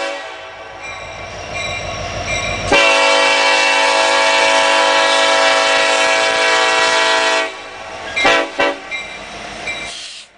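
Union Pacific SD70ACe diesel locomotive's air horn sounding over a low train rumble. It gives one long, loud blast of several notes at once, starting about three seconds in and lasting about four and a half seconds, then two short toots about a second later.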